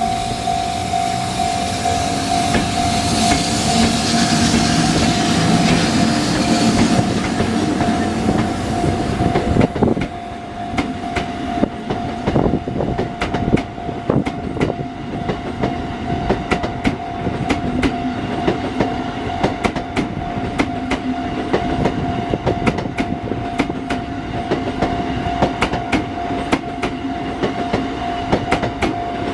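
Japanese railway level-crossing warning bell ringing steadily while a train passes over the crossing. The train is loudest in the first few seconds, then its wheels clack over the rail joints in a long run of sharp clicks from about ten seconds in.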